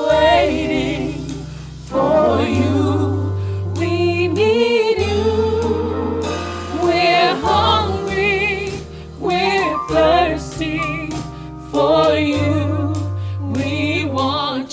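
Gospel worship music: several voices singing long wavering runs with vibrato, over deep electric bass notes, keyboard and drums.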